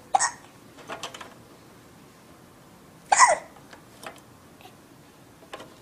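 A four-month-old baby hiccupping: a sharp hiccup just after the start and a louder one about three seconds in, with a few fainter clicks between.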